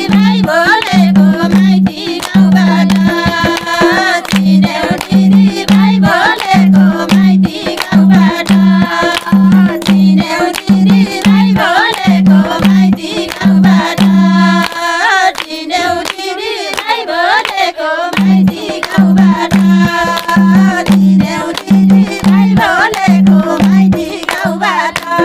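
Women singing a Nepali Teej folk song in a group, to a madal hand drum beating a steady pattern about twice a second, with hand-clapping. About fifteen seconds in, the drum stops for about three seconds while the singing goes on, then comes back in.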